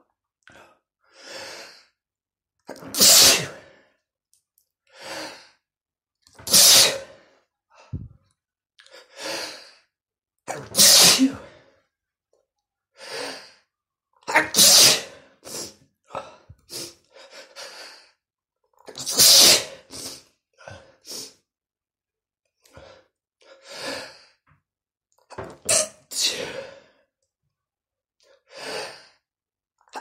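A man sneezing over and over in a fit: loud sneezes every three to four seconds through the first twenty seconds, then smaller, quicker ones, with short breaths drawn in between.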